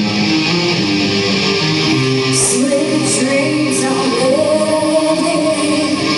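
Live rock band playing with electric guitar, drums and keyboard; a singer comes in about two seconds in, with a few cymbal hits just after.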